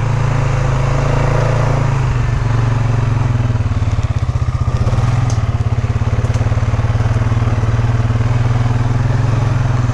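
Polaris Sportsman 570 ATV's single-cylinder engine running steadily, its exhaust note to the fore, with a fast pulsing beat coming into it about two seconds in.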